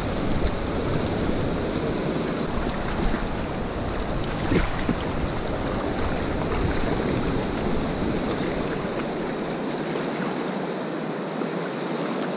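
Mountain river's water rushing steadily, with wind rumbling on the microphone that dies away about three-quarters of the way through.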